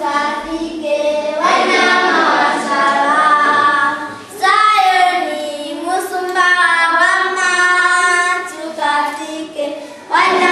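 A group of children singing together in sung phrases, with short breaks about four seconds in and near the end.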